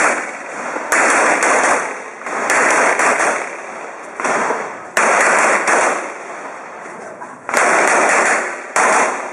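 Semi-automatic pistol firing a string of about nine shots, mostly in quick pairs about half a second apart, with gaps of a second or two between groups. Each loud crack trails off in a ringing echo.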